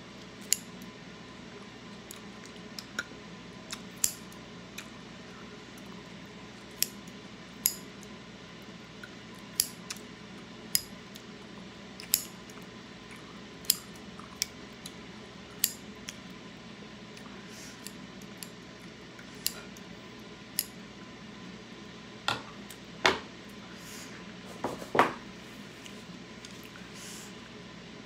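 Kitchen scissors snipping through a cooked octopus tentacle, with a short, crisp snip every second or two. Near the end come a few louder knocks against the ceramic plate.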